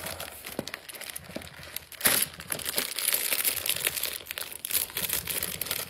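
Candy packaging crinkling and rustling as it is opened by hand, with a loud sudden burst of rustling about two seconds in.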